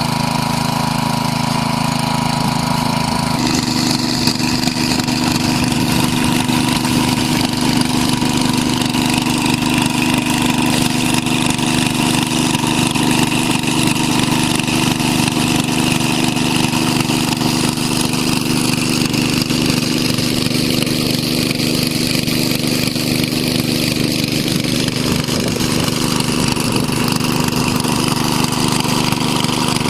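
A small engine running steadily with a constant hum; its note shifts slightly about three and a half seconds in.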